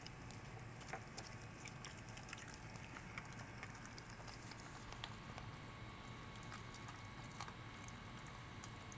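A golden retriever chewing a whole raw sardine: faint, irregular small clicks from her mouth and teeth on the fish, over a low steady hum.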